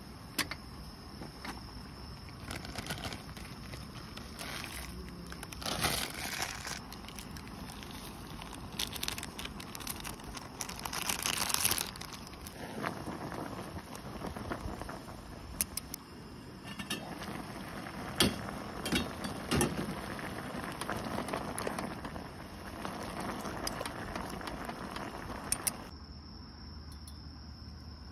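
Instant ramyeon cooking in a stainless steel pot on a portable gas stove: the water boiling, with chopsticks stirring the noodles and clicking against the metal pot now and then.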